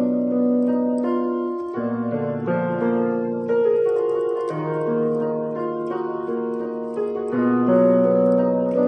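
Background piano music: slow, held chords that change every second or two.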